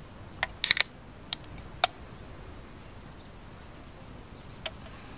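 A few short sharp clicks and knocks from a metal drink can being handled: a quick cluster about a second in, two more shortly after, and a single one near the end, over a faint steady background.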